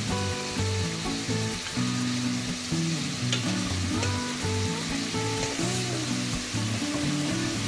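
Diced chicken breast sizzling in hot olive oil in a stainless steel pot, stirred and scraped with a wooden spatula from about halfway through. Soft background music with held low notes plays underneath.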